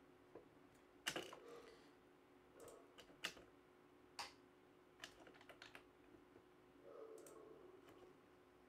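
Faint, scattered taps of computer keyboard keys, a dozen or so irregular clicks with the firmest about a second in, over a low steady hum.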